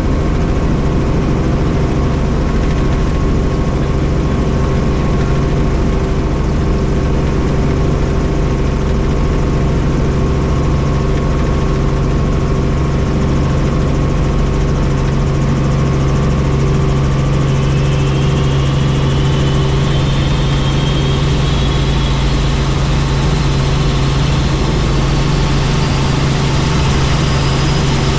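Helicopter in flight: a steady engine and rotor drone with a constant low hum. In the second half a faint high whine slowly rises in pitch.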